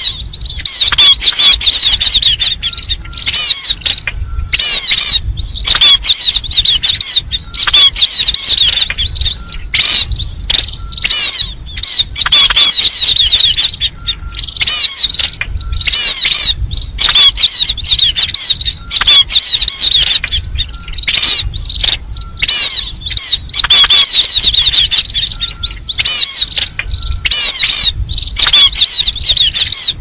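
A flock of munias chirping continuously in a dense chorus of rapid, high chirps. It is a lure-call recording of the kind used to draw munias into trapping nets.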